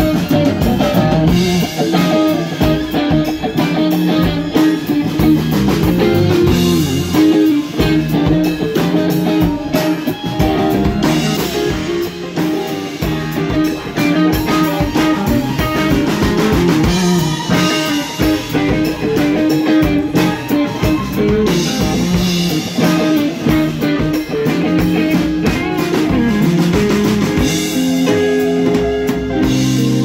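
Live band playing an instrumental passage: electric guitars over a drum kit and bass, steady and loud throughout.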